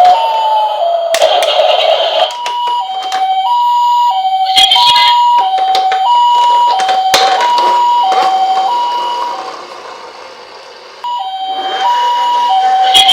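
Toy ambulance siren playing the two-tone hi-lo pattern of a Japanese ambulance, a high and a low tone alternating about every two-thirds of a second. Bursts of rattling and sharp clicks come through it. The siren fades away after about eight seconds, then starts again loudly about eleven seconds in.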